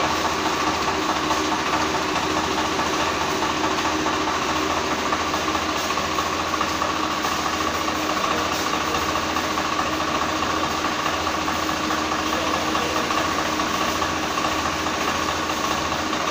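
Tractor engine running steadily while driving a centrifugal water pump through its PTO shaft and a V-belt and pulley drive.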